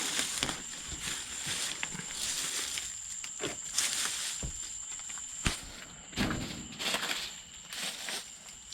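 Irregular footsteps and rustling, with a faint steady high-pitched whine throughout.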